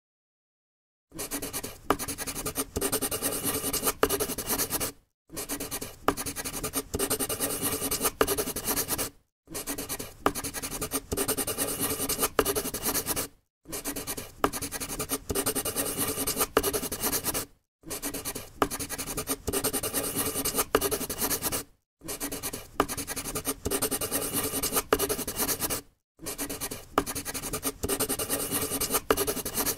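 Marker pen drawing on paper, a steady scratching of the tip across the sheet. It comes in about seven stretches of some four seconds, each broken by a brief dead silence.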